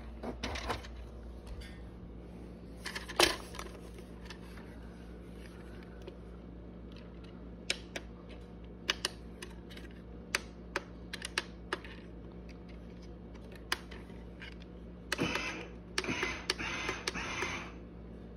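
Electric baby swing running, its motor giving a low steady hum, with scattered sharp clicks. A few seconds of louder rustling noise come near the end.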